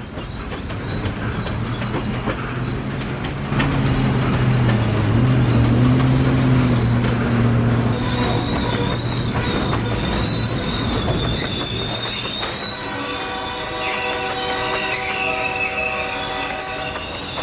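Freight train rolling past: a diesel locomotive's engine runs loudly for a few seconds, then steel wheels of the covered hoppers squeal in a high, steady pitch. Near the end several steady squealing tones sound together.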